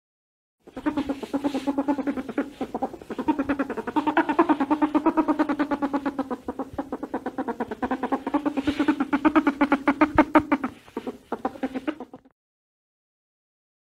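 Ring-tailed lemur calling: a buzzy, rapidly pulsing call at a steady low pitch. It starts about a second in, runs for some eleven seconds with a short break near the end, then stops abruptly.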